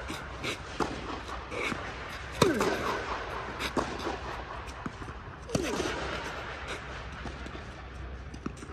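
Tennis rally on an indoor court: sharp racquet-on-ball strikes, the two loudest about two and a half and five and a half seconds in, with fainter clicks from the far end of the court between them, each hit echoing in the hall.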